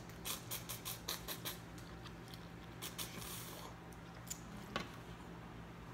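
Small rapid clicks and crackles of a boiled crawfish being bitten and pulled apart, its shell cracking, several a second at first, then sparser. A brief soft hiss about three seconds in.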